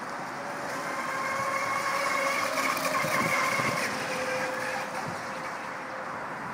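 Small homemade RC catamaran's electric motor whining at speed over the water. It grows louder as the boat passes close by, about two to three seconds in, then fades as the boat runs away. Wind noise on the microphone runs underneath.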